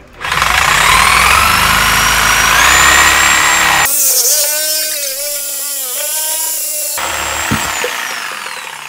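Corded reciprocating saw cutting through a PVC drain pipe. Its motor whine climbs as it speeds up, wavers for a few seconds in the middle of the cut, then drops in pitch and fades near the end.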